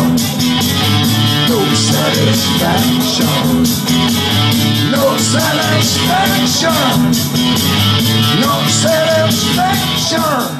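Rock and roll dance music with a steady beat, with a man singing into a microphone over it.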